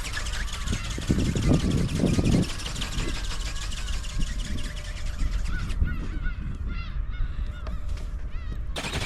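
Wind buffeting the microphone with a low rumble, gusting harder about a second in, while birds call repeatedly with short honking calls.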